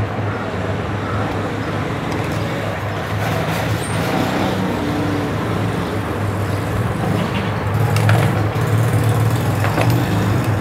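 Steady low background rumble, with a few faint metallic clicks in the second half as a screwdriver works the needle-plate screws of a household sewing machine.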